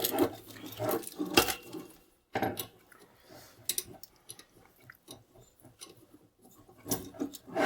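Scattered clicks, taps and light rustling as the parts of a microphone arm kit and its table clamp are handled, with a sharper knock about a second and a half in.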